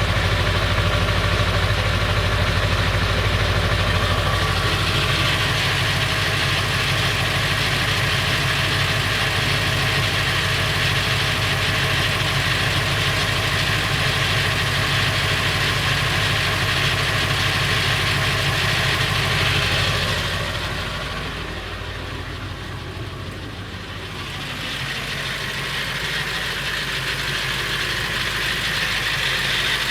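A Ford 7.3L Powerstroke V8 turbodiesel idling steadily with a rattle whose cause is unknown; the owner asks whether it is the flexplate or the engine. The sound goes quieter and duller for a few seconds about two-thirds of the way through, then comes back up.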